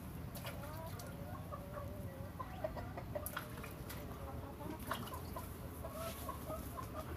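Chickens clucking: a continuous run of low, wavering clucks, with a few sharp clicks.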